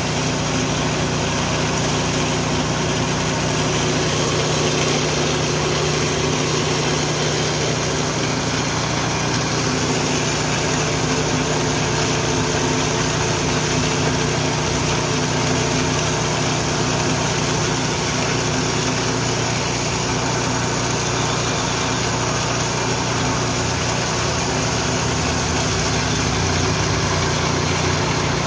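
Richi KD 350 mini rice and corn milling machine running steadily, a continuous mechanical drone with a constant low hum and no change in speed.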